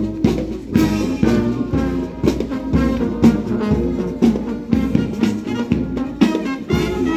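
Navy marching band playing a brass march: sousaphones, trombones and trumpets over a steady drumbeat of about two beats a second.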